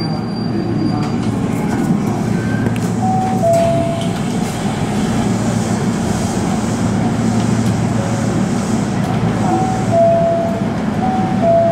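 Subway train standing at an underground platform, with the steady hum of its onboard equipment and station noise. Short two-note chimes sound about three seconds in and again near the end.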